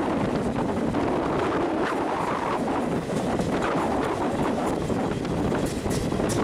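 Steady rushing of wind on the microphone over the running noise of a moving electric passenger train, heard from an open coach door. A few sharp clicks from the wheels near the end.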